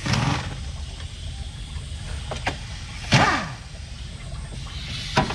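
Workshop tool noises during radiator removal: a few sharp clicks and a short, louder burst about three seconds in whose pitch drops as it dies away, typical of a brief air-tool run winding down. A steady low shop hum sits underneath.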